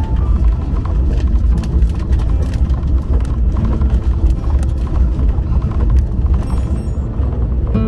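Velomobile rolling along a rough lane: a steady low rumble of the tyres and road through the shell, with frequent small knocks and rattles.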